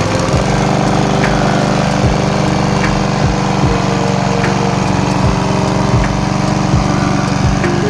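Briggs & Stratton single-cylinder engine of a 1986 Goldie R-20 rotary lawnmower running steadily at a constant speed.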